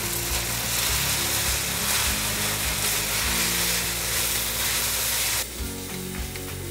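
Pasta sizzling in olive oil in a hot frying pan as it is tossed with the sauce, over soft background music. The sizzle cuts off suddenly about five and a half seconds in.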